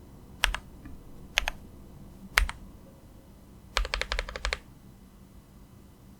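Keychron Q8 mechanical keyboard being typed on: three single keystrokes about a second apart, each a quick double click of press and release, then a fast run of about eight keystrokes around four seconds in.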